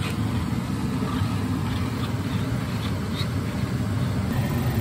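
A steady low hum runs throughout, with a few faint light clicks of a fork beating egg in a plastic bowl.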